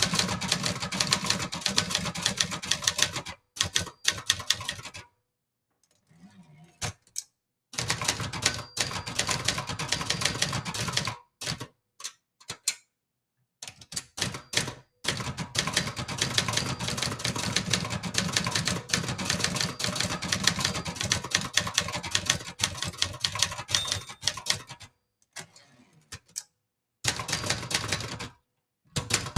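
Brother Charger 11 manual portable typewriter being typed on: fast runs of key strikes clacking against the platen, broken by a few short pauses.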